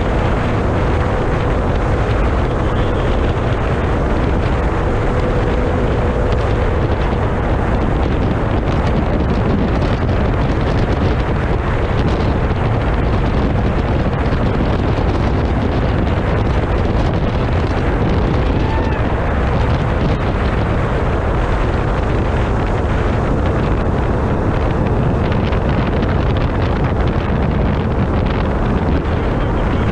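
Wind buffeting the microphone over a 70 hp tiller outboard running steadily at full speed on an inflatable race catamaran, a constant loud roar.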